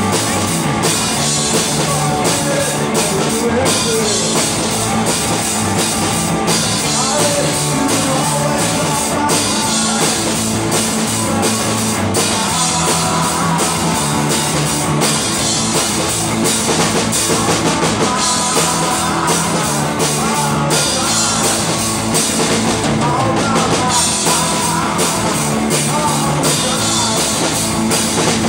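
Live rock band playing a song: drum kit, guitar and a lead singer at the microphone, steady and loud throughout.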